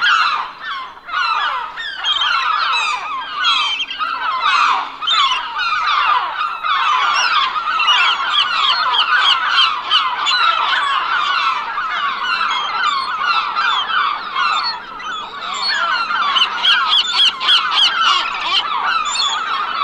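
A large flock of seagulls calling together, many overlapping calls without a break.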